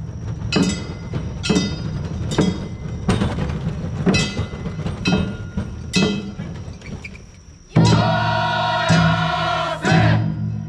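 Nagasaki Kunchi kawafune festival music: percussion struck about once a second, each strike ringing on, over a steady low rumble. A group of voices chants together in a long held call from a little before the end.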